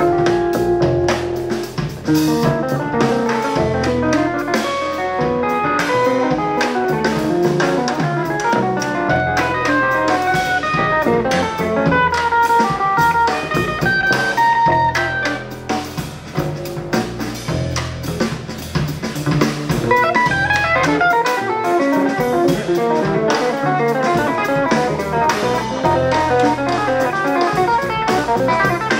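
Live jazz quartet playing: two electric guitars in fast, busy note runs over upright bass and drum kit.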